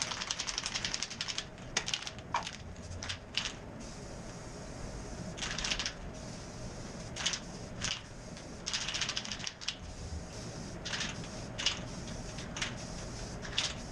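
Rust-Oleum matte clear enamel aerosol can being shaken, its mixing ball rattling rapidly for about a second and a half, then a few single clicks. After that come short hissing bursts of spray, about eight of them, one nearly a second long, as the clear coat is sprayed on.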